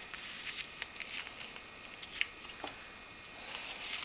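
Soft scraping and rustling of sand-like filler being dug through inside a plastic toy compartment, with a few small sharp clicks.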